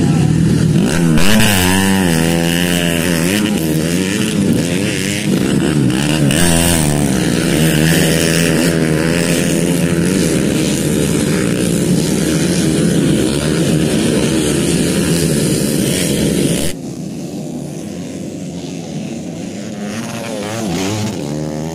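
Several modified underbone race motorcycles revving hard, their engine pitches rising and falling as the riders work the throttle through the dirt track's corners. About three quarters of the way through the sound drops suddenly to a quieter, more distant engine note that still rises and falls.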